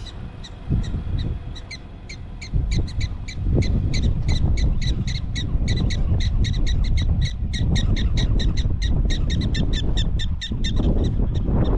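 Black-tailed prairie dogs giving their alarm call, a fast run of short, sharp chirps several times a second, growing stronger about two seconds in. Wind rumbles on the microphone beneath the calls.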